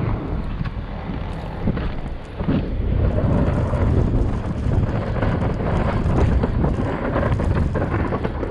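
Wind buffeting the microphone in a blizzard, a steady low rumble, with a snow-plowing vehicle running underneath.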